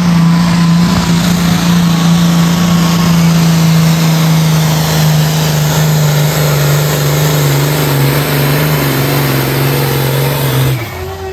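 Turbocharged diesel engine of a John Deere Pro Stock pulling tractor at full throttle, dragging the weight sled down the track to a full pull: a loud steady drone whose pitch sags a little in the second half. The engine note stops suddenly about a second before the end.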